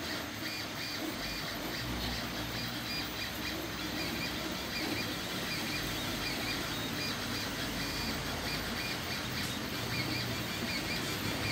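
Open-frame FDM 3D printer printing: its stepper motors whine and chirp in short, changing tones as the print head moves, over the steady whir of the cooling fans.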